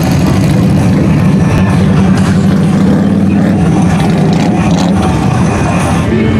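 Several motorcycles' V-twin engines running in slow, crowded street traffic, a steady low rumble.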